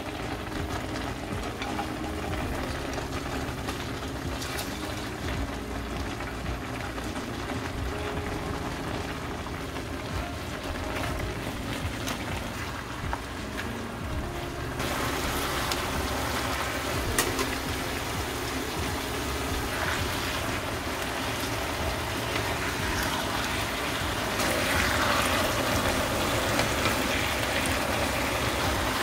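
Beef bulgogi and glass noodles sizzling and bubbling in a frying pan while a spatula stirs them. The sizzle turns louder and brighter about halfway through.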